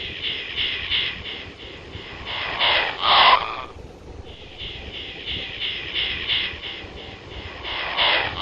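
A strange animal call coming from inside a tree: a series of evenly spaced high pulses, about three a second, building up to a loud harsh burst. The whole sequence comes twice, about five seconds apart.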